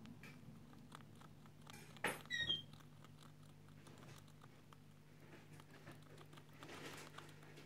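Faint rustling and pattering of pet rats moving about a cage with paper-pellet bedding, over a faint low hum. About two seconds in there is a sharp click followed by a brief high squeak.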